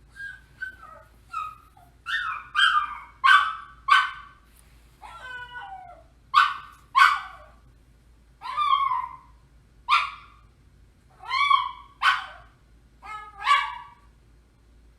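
Poodle barking excitedly in a run of short, sharp barks, many in quick pairs, with a longer wavering, whine-like call about five seconds in.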